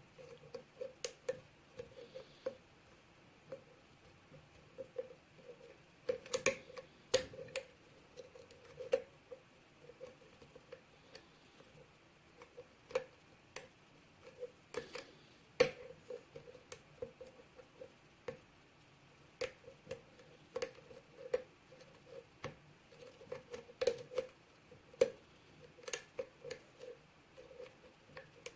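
Lock pick working the pins of a seven-pin lock cylinder under tension: irregular small metallic clicks, taps and scrapes as the pins are probed and lifted.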